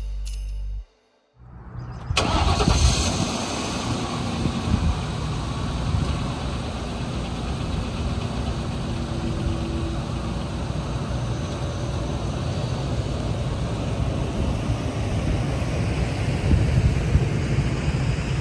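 Ford Econoline cargo van's door shutting about two seconds in, then its engine starting and running as the van pulls away, with wind buffeting the microphone.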